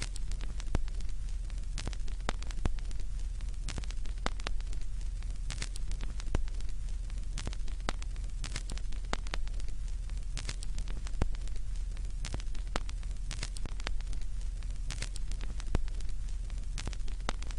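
Steady crackling static: irregular sharp pops and clicks over a faint hiss and a low hum.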